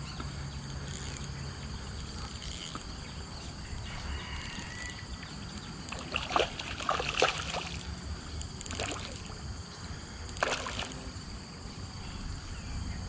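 Steady high chirring of insects over the pond. A hooked fish splashes at the surface in short bursts: a cluster about six to seven seconds in and one more a little after ten seconds.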